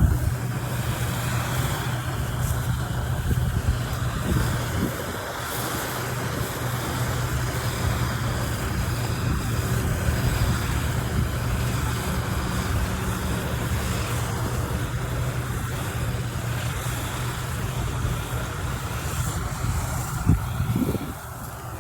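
A farm machine's engine running steadily at a constant speed, with wind noise on the microphone and one sharp knock near the end.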